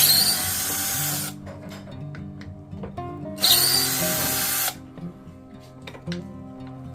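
Power drill driving the height-adjustment screws in a portable commode's legs, in two runs of about a second each, each starting with a short rising whine as the motor spins up. Background music plays throughout.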